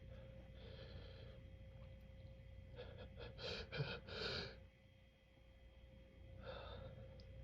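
A person's gasping, catching breaths between sneezes in an allergic sneezing fit: a short inhale about a second in, then a quick run of several breaths about three seconds in, and another near the end.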